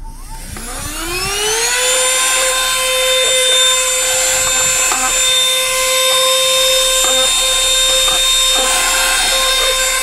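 Portable handheld car vacuum cleaner switched on: its motor winds up over about two seconds to a steady high whine, with a few small clicks along the way.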